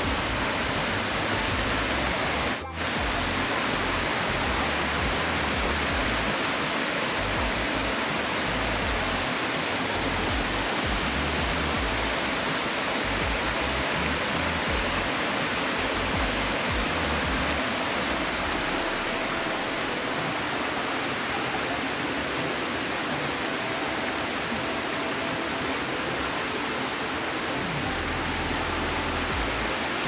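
Steady rushing of a waterfall, with faint background music over it; the sound breaks off for an instant about three seconds in.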